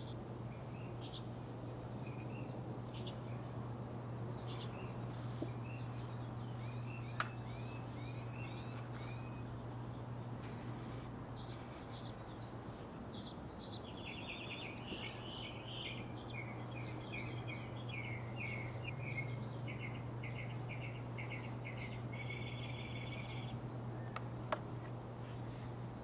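Backyard songbirds chirping and singing: scattered short chirps and slurred notes, then a long run of rapid trilled notes through the second half. A steady low hum sits underneath, with a couple of single small clicks.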